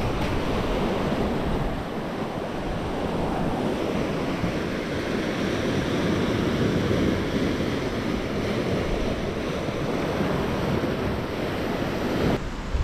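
Sea surf washing steadily against the shore, mixed with wind on the microphone.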